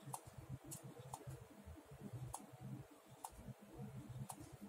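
Ballpoint pen drawing short strokes on paper, faint, with about six sharp ticks at uneven intervals over a soft, uneven scratching.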